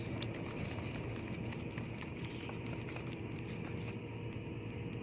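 A steady low mechanical hum with a few faint scattered ticks.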